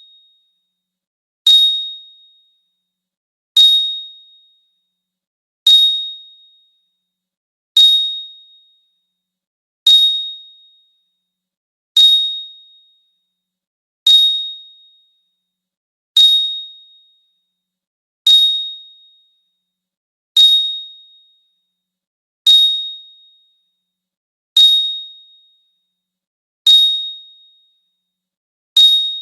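A 'bling' treasure-shine sound effect: a bright, high ding with a glittery shimmer on top. It repeats identically about every two seconds, each one ringing out and fading within about a second.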